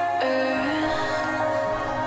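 Background song with held melody notes; a low bass comes in about half a second in.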